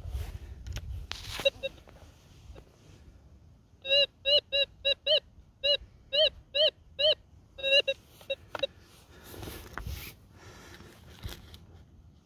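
Minelab Gold Monster metal detector sounding a target: a run of about a dozen short beeps over about five seconds, each rising and falling in pitch as the coil sweeps back and forth over the dig hole. Quieter scraping and rustling of dirt comes before and after the beeps.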